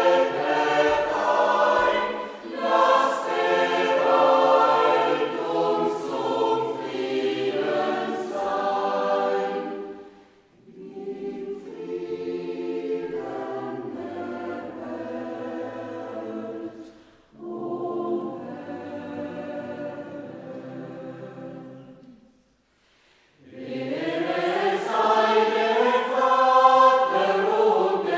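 Choir singing in sustained chords, phrase by phrase. It grows softer about ten seconds in and stops for about a second near two-thirds through, then comes back in fuller and louder.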